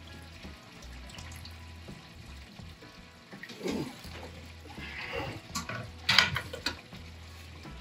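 Hot wort pouring from a recirculation return tube into a stainless brew kettle, splashing steadily. About halfway through, a copper immersion chiller is lifted out of the kettle, with clanks and dripping; the loudest clatter comes about six seconds in.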